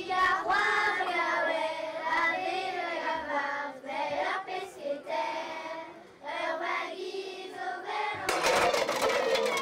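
A children's choir singing in unison into microphones, in phrases with short breaks between them. About eight seconds in the singing cuts off abruptly and a noisy crowd hubbub takes over.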